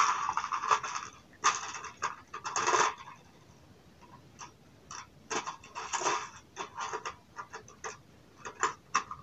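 Small hand tools and screws being handled on a workbench: irregular light clicks and scrapes, busiest in the first three seconds and then sparser.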